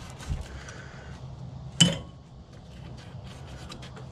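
Steel tools and suspension parts clinking against the front axle beam of a 1960 VW Beetle: a dull thump just after the start, then one sharp ringing metal clink a little under two seconds in, with a few faint ticks.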